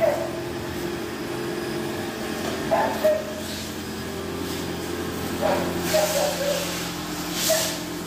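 A dog giving short barks, four times at intervals of two to three seconds, over a steady low hum.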